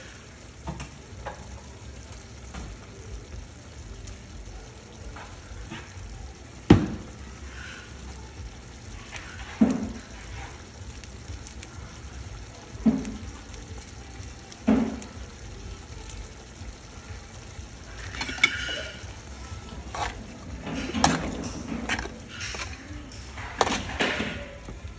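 Sauce of sausage, pig's ears and chicken feet simmering and sizzling in a pan on the stove, with a few sharp knocks spread through. Near the end a spoon stirs and clatters in the pan.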